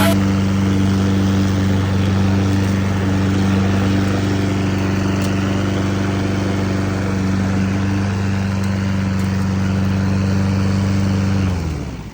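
Honda HRN 216 lawn mower's single-cylinder engine running at a steady speed, then shut off near the end, its pitch sagging as it spins down to a stop.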